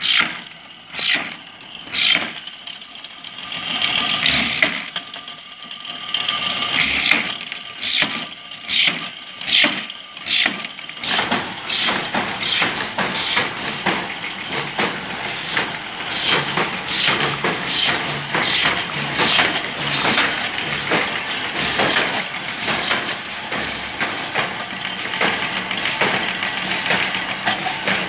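Drilling machine boring holes in PVC pipe: repeated sharp strokes, spaced out at first, then coming about twice a second over a steadier machine noise from about 11 seconds in.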